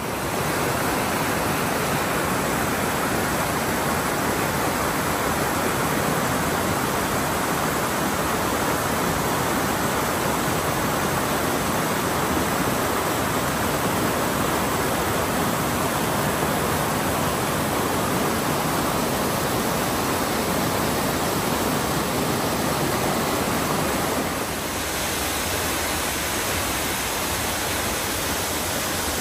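Mountain creek rushing over granite boulders in cascades and a small waterfall: a steady rush of water that drops a little in level about 24 seconds in.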